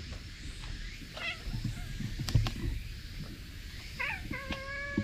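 Stray cats calling: a short warbling call about a second in, then a long drawn-out meow starting near the end, with a sharp knock about halfway through.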